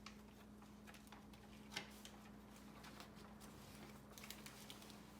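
Near silence: room tone with a steady faint hum and a few faint clicks, one slightly louder about two seconds in.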